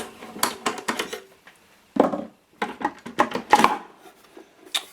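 Clicks and light clatter of a hand tool and metal parts being handled during disassembly, with a quick run of sharp clicks in the first second and a duller knock about two seconds in, then more clatter.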